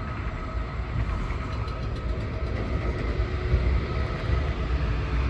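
Class 66 diesel-electric freight locomotive, with its two-stroke V12 diesel engine, pulling a freight train away from a stand under power. The low engine rumble grows gradually louder.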